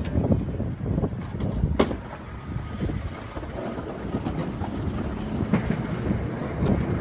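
Snow-plowing vehicle running with a steady, rough rumble, irregular knocks and a sharp knock about two seconds in, with wind noise on the microphone.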